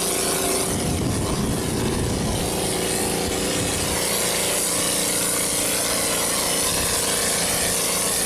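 IMER Koine 35 pump-mixer running steadily with a constant hum, while compressed air hisses from the spray gun as cement mix is sprayed onto a wall.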